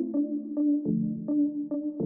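Background music: a soft synthesizer or electric-piano piece with evenly paced notes over changing chords.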